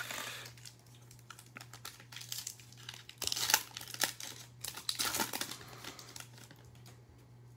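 Foil trading-card pack wrapper crinkling and tearing as it is pulled open by hand, in crackly bursts that are loudest about three and a half seconds in, over a faint steady low hum.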